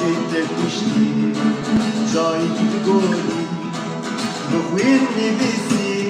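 Music led by plucked acoustic guitar.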